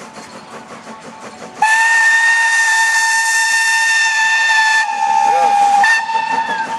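Narrow-gauge steam locomotive puffing rhythmically, then sounding its steam whistle in one long loud blast of about four seconds from about a second and a half in. The whistle dips slightly in pitch near the end and gives a short higher toot before fading.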